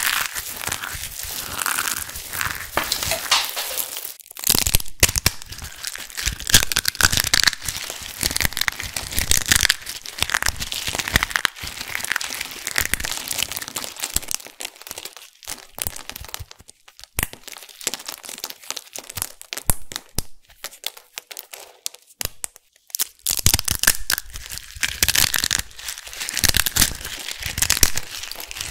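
Hands squeezing and crumbling handfuls of brittle black flakes, a dense, dry crackling and crunching. The crunches thin out and grow quieter through the middle, then pick up again near the end.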